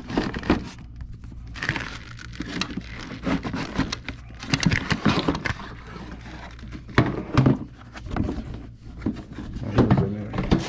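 Irregular clicks, knocks and rattling of a plastic coolant reservoir being worked up and out of the engine bay among wiring, over a steady low hum.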